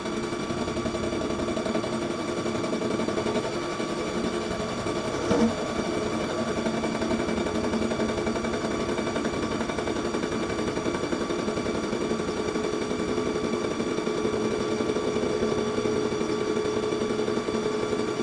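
CNC vertical milling machine running, a steady whine made of several held tones, with one short sharp knock about five seconds in.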